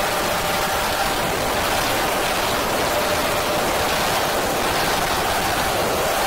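Steady rushing noise, rain-like, with a few faint held tones underneath: an ambient noise soundscape run through effects processing.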